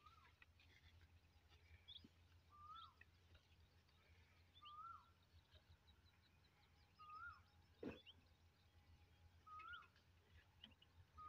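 Faint outdoor birdsong: one bird repeats a short rising-then-falling call every two to three seconds while others add scattered higher chirps, over a low steady hum. A single sharp knock about eight seconds in.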